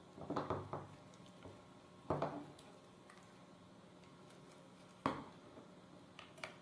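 A few short clicks and knocks of a small screwdriver, a bolt and the plastic chassis plate being handled while a robot-car gear motor is bolted on, over a faint steady hum.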